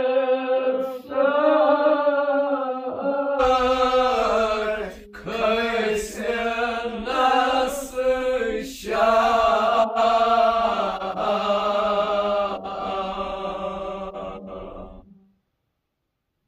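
Unaccompanied male voices chanting a Kashmiri marsiya, an elegy, together in long held phrases. The singing stops abruptly about fifteen seconds in.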